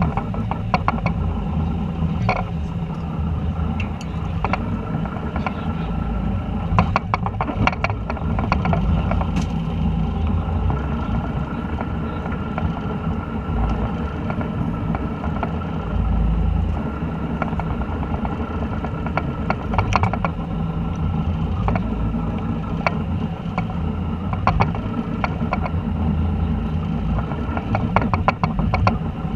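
Fishing boat's engine idling with a steady low drone. Scattered sharp clicks and rattles sit on top of it, in a cluster about seven seconds in and another around twenty seconds.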